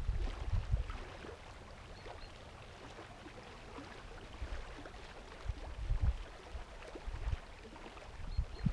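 Reservoir water lapping gently against the shore, a soft steady wash with small splashes. Gusts of wind buffet the microphone now and then in short low rumbles, at the start and again several times later.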